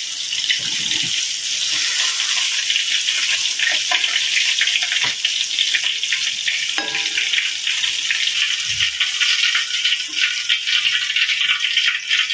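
Hot oil sizzling and crackling steadily around battered rohu fish pieces deep-frying in a wok, the fish done and being lifted out with metal tongs, with a few light clicks of the tongs.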